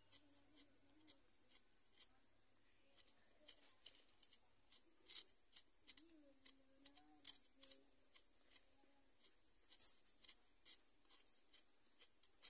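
Wood fire in a clay chulha crackling faintly: short, sharp, irregular clicks, a few a second.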